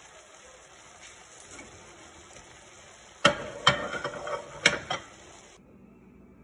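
Cookware clatter as pieces of fried tilapia are set into a pan of simmering spinach broth: a few sharp clinks and knocks of a plate or utensil against the pan, about three seconds in.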